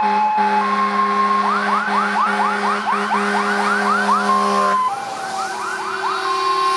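Fire engine sirens: an electronic two-tone siren alternating high and low, joined by a rapid yelping siren rising about four times a second. Under them a steady blast of Grover 1510 air horns sounds and stops about five seconds in.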